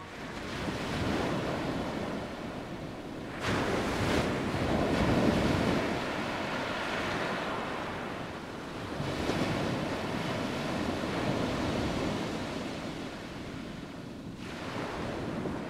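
Ocean surf rushing, swelling in long surges a few seconds apart and easing off between them.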